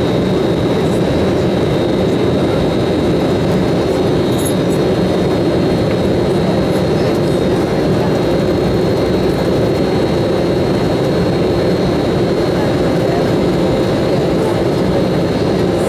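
Cabin noise inside an Embraer E195 airliner taxiing, its General Electric CF34-10E turbofans at low taxi thrust: a steady, even rumble with a thin high whine held over it.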